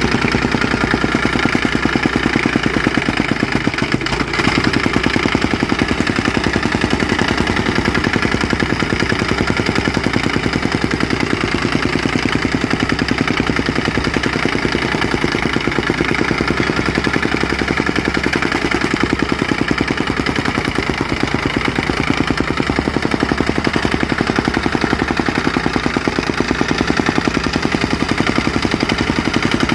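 Soil compactor's small engine running steadily, with a fast, even clatter of the machine working.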